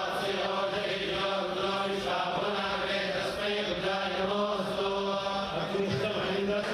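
A group of priests chanting mantras together in a steady, continuous drone, their voices moving in unison.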